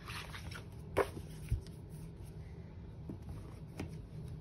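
A paper watercolour pad being handled and moved on a table: a soft rustle, a sharp tap about a second in and a dull thump just after, then a few faint ticks.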